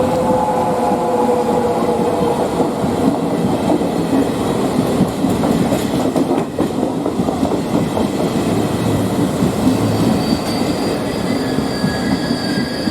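A train passing close by, its wheels clattering steadily on the rails. A thin, high squeal from the wheels sets in about ten seconds in.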